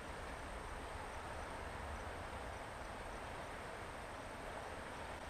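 Steady outdoor ambience: an even hiss with a low rumble beneath it and a thin, high, steady tone on top.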